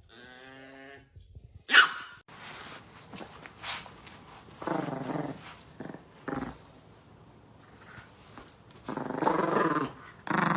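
Chihuahua growling in several drawn-out bursts, with one sharp bark about two seconds in.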